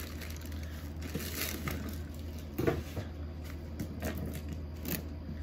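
Soft handling noises of items being moved and set down: a few light knocks and rustles, the clearest about two and a half seconds in, over a steady low hum.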